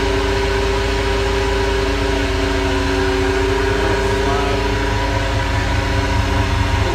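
2001 Dodge Ram 1500 4x4's drivetrain turning in 5th gear at idle, giving off a steady, loud whine with two held tones over a low hum from the rear of the truck. The owner suspects a bad rear differential; the wheels also wobble and have some play.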